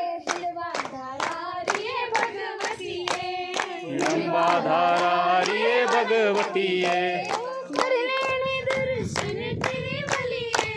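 Group of young voices singing a devotional bhajan together in unison, with steady rhythmic hand-clapping keeping time.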